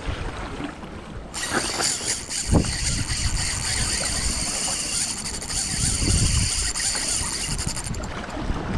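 Shimano Saragosa 5000 spinning reel's drag buzzing steadily as a hooked false albacore pulls line off. It starts abruptly about a second in and eases near the end, over wind noise.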